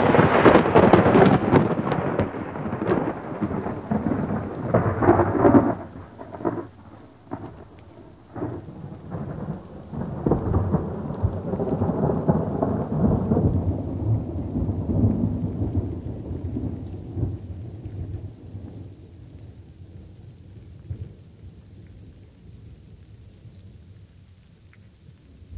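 Thunder rumbling over steady rain, loud at first and then dying away gradually, with a few sharp cracks a few seconds in.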